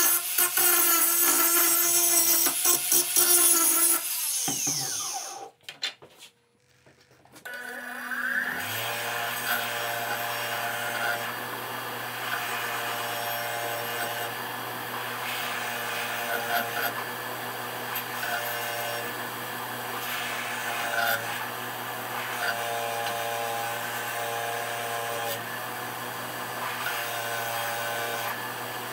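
Makita 18V cordless angle grinder grinding steel held in locking pliers, then spinning down about four seconds in. After a brief quiet spell, a bench grinder spins up and runs with a steady hum, and steel grinds against its wheel again and again as a hatchet head is pressed to it.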